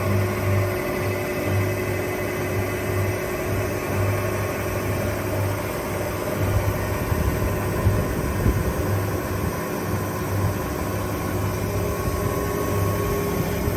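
REMA DMMA-35 sliding-table circular saw running, driven by its 4 kW electric motor. The motor hums steadily with a low hum that throbs roughly once a second.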